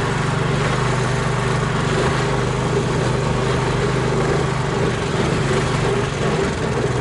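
Engine of a homemade all-terrain vehicle on low-pressure tyres running steadily at an even speed, without revving.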